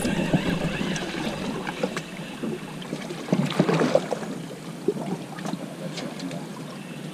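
Water lapping and slapping against the hull of a drifting boat, with wind on the microphone and scattered small knocks.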